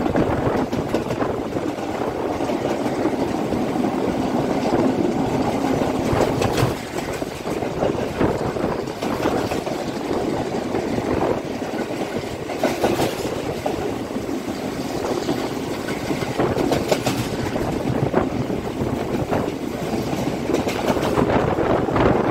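Train wheels running fast on the rails, a steady rumble heard through an open carriage doorway, with occasional clacks from the track.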